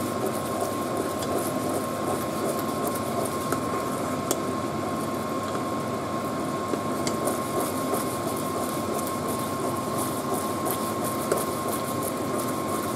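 Glutinous rice in a coconut-milk and brown-sugar syrup bubbling at the boil in a pot while a spoon stirs it, with small pops and clicks. A steady hum with a constant high tone runs under it throughout.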